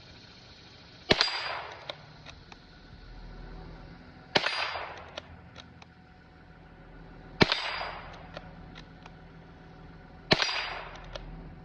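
Four .22 LR rifle shots from a Ruger Precision Rimfire, about three seconds apart. Each shot has a short ringing tail, and light clicks come between the shots.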